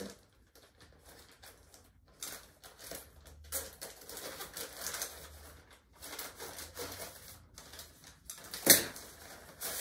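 Scissors cutting open a plastic poly mailer bag, the plastic crinkling and rustling in a run of short crackles, with one louder rustle near the end.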